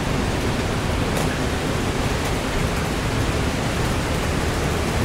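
Steady rush of running water echoing in an underground river collector tunnel, an even unbroken noise.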